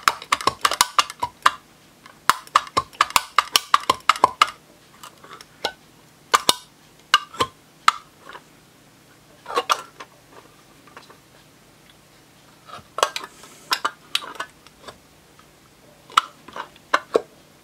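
Irregular sharp clicks and taps of a tool against an LED downlight's housing and spring clips as a stuck LED module is pushed out from behind. The clicks come in a quick run at first, then in scattered groups.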